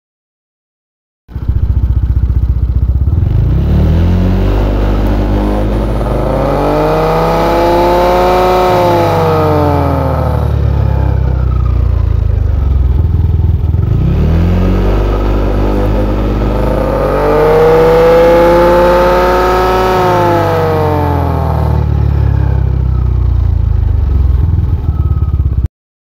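Yamaha Aerox scooter's engine and CVT transmission revved up and back down twice, with a whine that rises and falls with speed. The owner suspects the noise comes from a worn primary drive bearing that has play in it.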